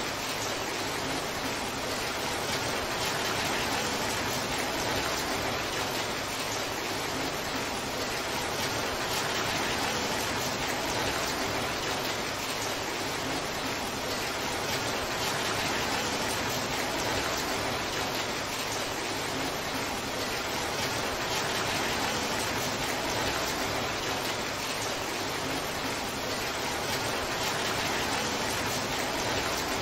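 Torrential rain falling steadily, an even, unbroken hiss of downpour.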